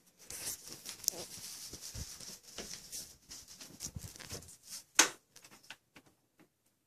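Soft rustling and shuffling of a phone being carried and handled by someone creeping up quietly, with one sharp hit about five seconds in.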